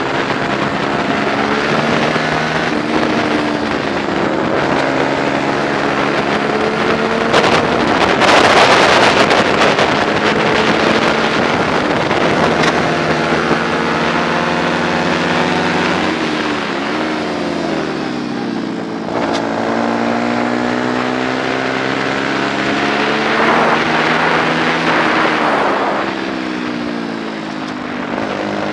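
Onboard sound of a 125 cc four-stroke racing motorcycle engine at racing speed: the engine note climbs through the gears and drops in steps on downshifts into corners, about two-thirds of the way through and again near the end. There is heavy wind rush on the microphone, loudest about eight seconds in.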